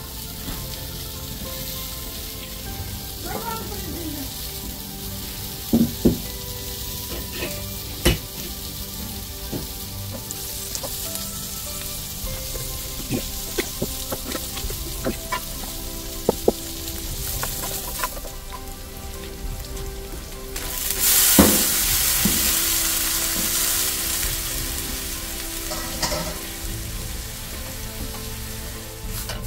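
Oil sizzling in a stainless steel wok as chopped onion and garlic fry, with sharp knocks now and then from the pan and utensils. About two-thirds of the way through the sizzle jumps much louder and brighter as mixed vegetables go into the hot pan, then slowly settles.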